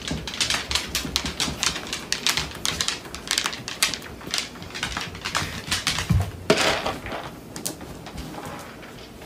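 A dog eating kibble from its food bowl and then carrying the bowl, giving a quick, uneven run of crunching clicks and rattles. A louder clatter comes about six and a half seconds in, and the clicks thin out near the end.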